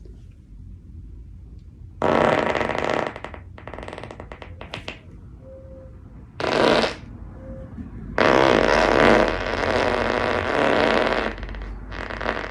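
A woman passing gas: a run of about five long, gassy farts. The longest, about two thirds of the way in, lasts around three seconds, and a shorter one breaks into rapid pulses.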